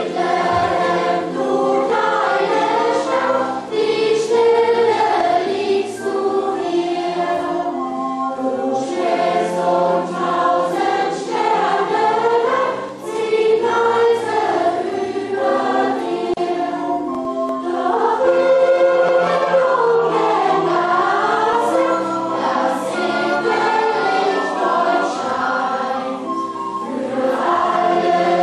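A large choir of children and adults singing a song together, steady and continuous.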